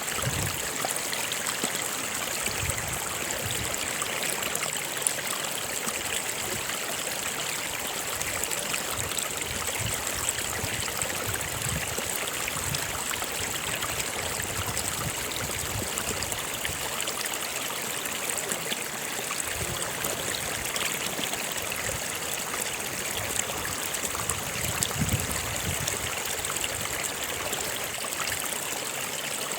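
Stream of water running steadily over stones, a continuous rushing with small gurgles and splashes.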